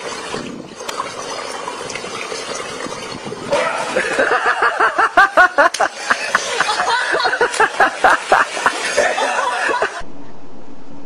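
People laughing hard in quick repeated bursts over the wash of swimming-pool water. The laughter starts a few seconds in and breaks off about ten seconds in, leaving a steady hiss.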